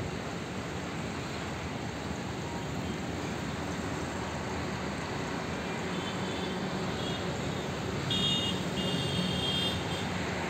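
Steady outdoor rumble of distant road traffic mixed with wind noise. From about six seconds in, a run of short, high chirps joins it.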